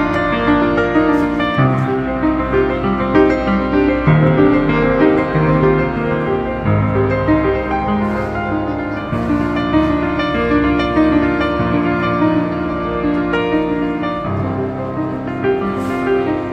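Piano music: sustained notes and chords changing every second or two.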